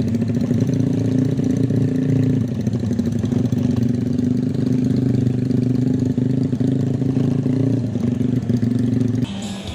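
Honda Tiger's single-cylinder four-stroke motorcycle engine running at a steady speed, its note shifting slightly a couple of times. It cuts out near the end.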